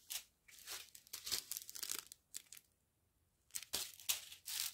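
Small plastic bags of round diamond-painting beads crinkling and tearing as they are handled and pulled apart from their strip, in two bouts of rustling with a short pause between.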